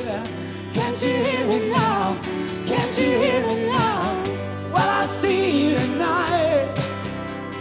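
Live acoustic song: a woman singing with strong vibrato, accompanied by acoustic guitar and keyboard.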